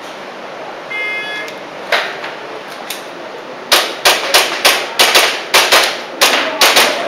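An electronic shot timer beeps once about a second in. Airsoft pistol shots follow: two single cracks, then a quick string of about a dozen sharp shots, roughly three a second.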